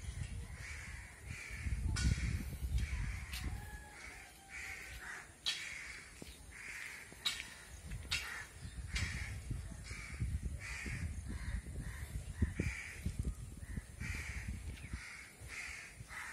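Crows cawing over and over, about one to two caws a second, with a low rumble underneath that swells about two seconds in and again from about ten seconds.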